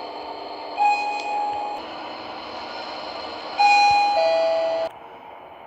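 Sigma elevator chimes: a single electronic ding about a second in, then a two-note high-then-low ding-dong that cuts off abruptly near the end.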